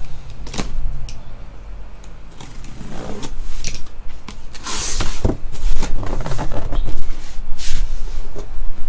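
Cardboard shipping case of trading-card boxes being handled and its flaps pulled open: irregular scraping and rustling of cardboard with a few knocks, and a louder scrape about halfway through.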